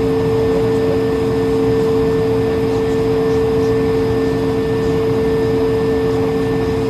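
Steady cabin noise of an Airbus A220-300: an even rush of air with two unchanging low droning tones and a fainter higher whine, neither rising nor falling.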